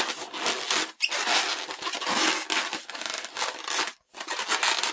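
Inflated yellow latex modelling balloon squeaking and rubbing against itself and the hands as it is coiled into a flat spiral. It comes in long stretches with short breaks about a second and about four seconds in.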